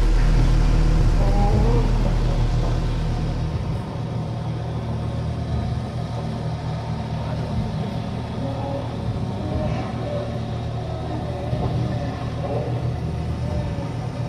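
A low, steady rumble with a hum, loudest for the first three seconds or so and then settling a little quieter.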